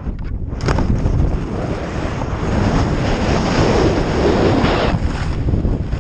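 Wind buffeting the microphone of a first-person camera on a skier moving downhill at speed, mixed with the hiss of skis sliding over snow. About half a second in there is a short drop-out, and the snow noise swells louder around the middle.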